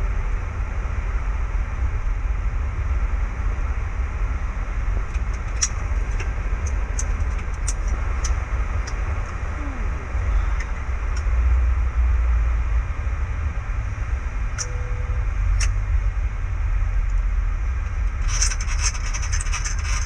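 Boeing 737 flight-deck noise on the ground: a steady low rumble with a hiss over it, the jet at low power. A few sharp clicks come in the middle, and a louder hiss sets in near the end.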